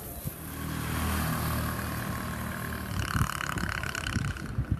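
A motor vehicle engine running in the street: a steady low hum, then a louder, rougher noise from about three seconds in.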